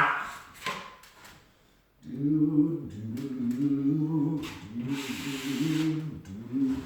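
A man humming a tune to himself, starting about two seconds in and carrying on in held, wavering notes.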